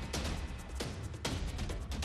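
News-bulletin background music with a steady beat over a heavy bass.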